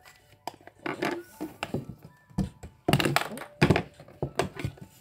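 A folded cardstock box handled on a wooden tabletop: a run of thunks, taps and stiff paper crackles, loudest about three seconds in.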